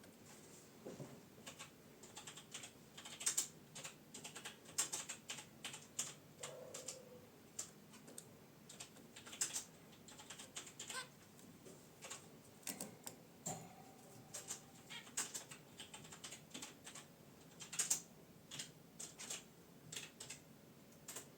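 Zebra finches moving about their cage: irregular light clicks and taps from feet and beaks, with two brief soft calls.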